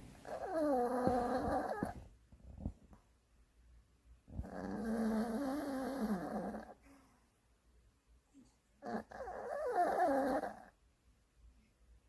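A sleeping dog snoring: three long snores of about two seconds each, roughly four seconds apart. Each has a pitched, wavering tone.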